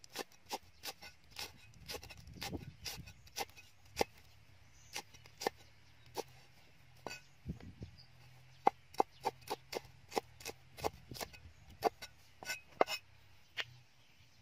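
Cleaver chopping red chili peppers on a round wooden chopping board: a run of sharp knocks at an uneven pace, a couple a second, coming closer together near the end.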